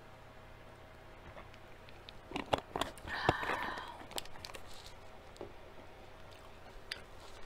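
Small plastic drink bottle being handled: a few sharp plastic clicks and crinkles, then a short scratchy rasp about three seconds in as the screw cap is turned.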